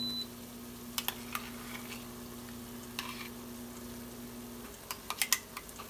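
A metal spoon stirs onions and ginger-garlic paste frying in an Instant Pot's stainless steel inner pot on sauté. There is a soft sizzle with scraping clicks of the spoon against the pot, loudest just after five seconds in. A steady low hum underneath stops about four and a half seconds in.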